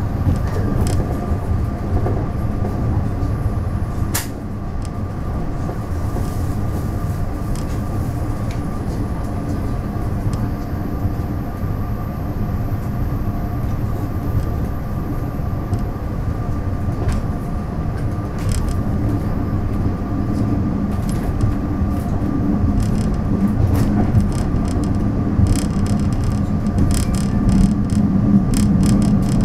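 DR3000 diesel multiple unit running at speed, heard from inside the carriage: a steady low rumble of wheels on rail with a constant hum. There is a sharp click about four seconds in. Near the end the running grows louder, with a run of clicks and rattles.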